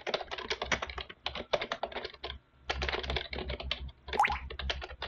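Rapid typing on a computer keyboard, a quick run of key clicks with a short break about halfway through. There is a brief rising sound about four seconds in.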